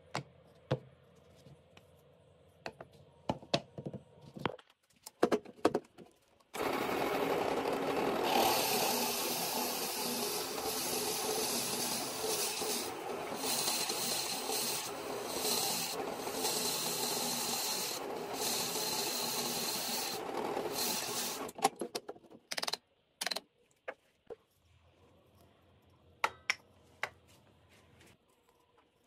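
Light knocks of small wooden log slices being handled, then a drill press starts about six seconds in and runs steadily while its bit bores into the end grain of a short log section, stopping about 21 seconds in. A few more scattered clicks and knocks follow.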